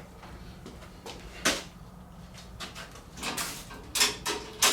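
A single sharp metal clink about a second and a half in, then a few short scraping strokes near the end: a wrench being fitted and turned on the bolts of a steel tool cart's brackets.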